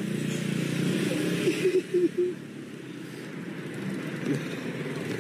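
Street traffic with scooter and motorbike engines running steadily, with a few brief voices in the background about two seconds in.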